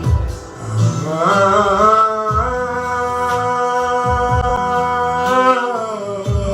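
Music with a male voice singing one long held note, sliding up into it about a second in and easing down near the end, over bass notes.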